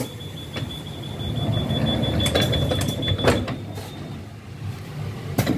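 EP2D electric train's doors closing at a station stop: a steady high warning tone sounds for about four seconds, with several sharp clunks from the sliding doors, the loudest near the end. Under it a low rumble swells as the train starts to pull away.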